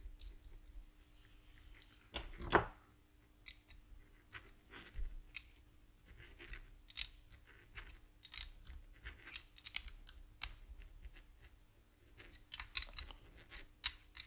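Small metal clicks and taps as a nut is threaded onto a throttle potentiometer's shaft over its washers and tightened with a small open-ended spanner. One louder knock comes about two and a half seconds in, and a quick run of clicks near the end.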